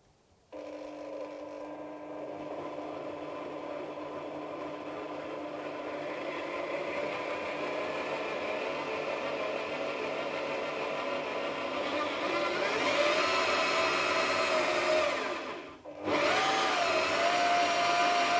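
Bosch GSB 21-2 RCT corded impact drill, mounted in a drill stand, starting up and running at low speed with a steady motor whine. The pitch shifts a few times. Near the end it cuts out briefly and starts again.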